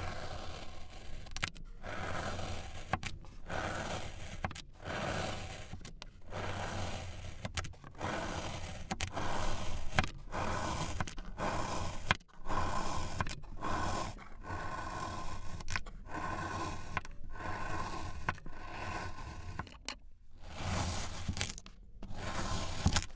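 A steel chef's knife slicing through a packed roll of kinetic sand, over and over. Each slice is a gritty scraping crunch of most of a second, with a short break and a light click between cuts, about one cut a second.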